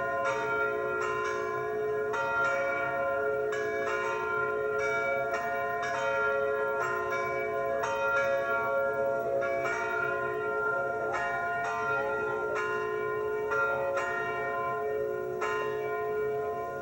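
Several church tower bells ringing together, struck about twice a second, with their tones at several pitches ringing on and overlapping.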